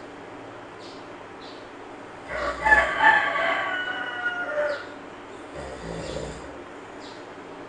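A rooster crows once, one pitched call of about two and a half seconds that starts a little after two seconds in and ends on a lower, falling note. Softer, slow snoring from a sleeping monkey runs underneath, with a low snore near the start of the crow and another about three seconds later.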